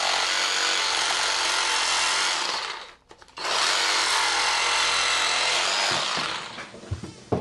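Power tool running in two long bursts of about three seconds each, with a short pause between, then a few sharp knocks near the end.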